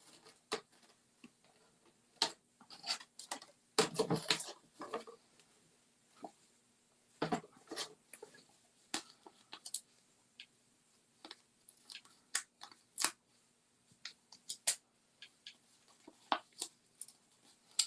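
Scattered small clicks, taps and crinkles of cardstock and a plastic-backed sheet of foam adhesive dimensionals being handled on a desk, as the pads are got ready to stick on.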